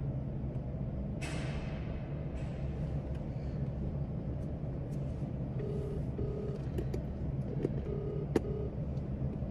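Steady low hum of a car cabin. From about halfway through, a phone's ringback tone plays on speaker: two double rings of a low steady beep. It is the sound of the missing phone being called.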